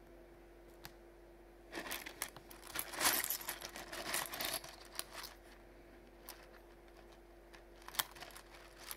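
Pieces of rough opal clicking and clattering against each other as fingers move through a pile of stones. A dense run of clatter starts about two seconds in and lasts about three seconds, followed by a few single clicks near the end.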